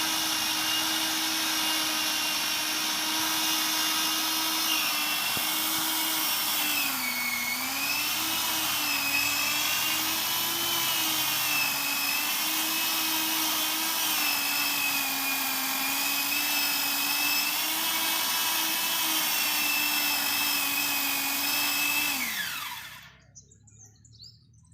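Power saw motor running on a steady high pitch that dips and wavers repeatedly as it cuts into the fallen tree's wood, then is switched off about 22 seconds in, its pitch falling as it winds down.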